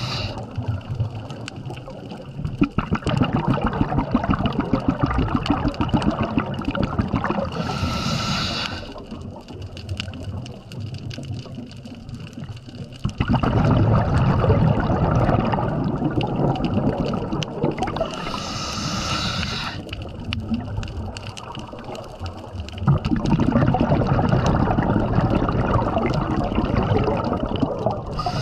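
Scuba diver breathing through a regulator underwater: a short hiss of inhalation about every ten seconds, with long stretches of bubbling exhaled air between them.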